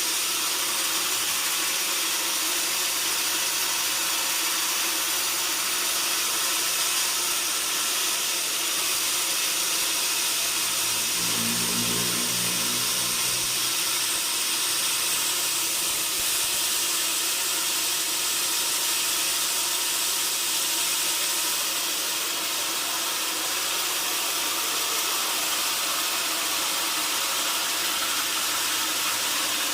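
Sawmill band saw cutting wood: a steady, high hiss, with a brief lower hum joining in about eleven seconds in for some three seconds.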